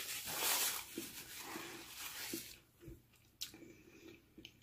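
A paper food wrapper crinkling in the hands for about the first second, then quieter chewing with a few small mouth clicks.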